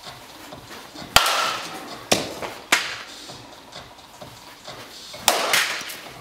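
Softball batting practice in a batting cage: four sharp knocks of a bat hitting balls and balls striking the cage, the loudest about a second in, two more between two and three seconds, and one near the end.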